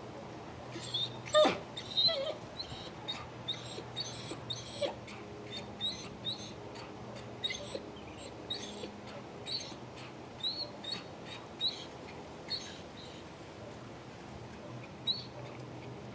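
A dog whimpering: a long run of short, high-pitched whines, about two a second, stopping near the end.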